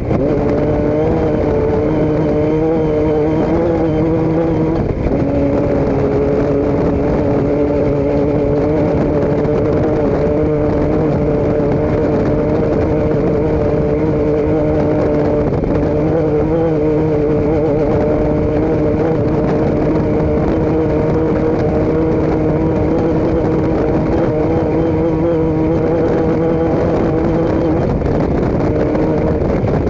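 A vehicle engine running at a steady speed with a constant drone. Its pitch shifts slightly a few times.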